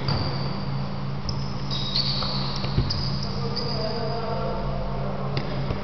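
Sports-shoe soles squeaking on an indoor futsal court floor: several short, high squeaks over about two seconds, with a single thump just under three seconds in, over a steady low hum.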